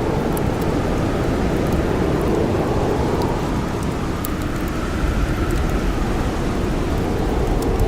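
Blizzard wind howling steadily, a dense rushing noise with a faint wavering whistle, mixed with the scattered small pops and crackles of a campfire.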